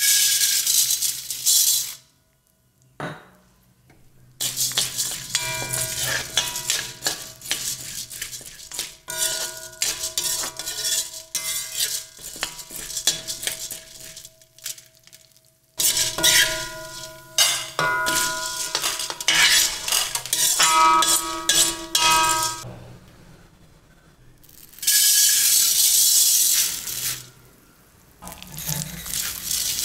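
Dry lentils (chana dal) poured into a brass kadai with a hissing rattle, then a steel ladle stirring and scraping them as they roast, clinking against the pan so that it rings. Near the end another pour of lentils (urad dal) rattles into the pan.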